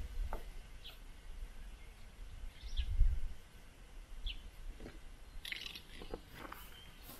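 Birds chirping outdoors in a few short, separate high calls, with scattered faint clicks and a brief low rumble about three seconds in.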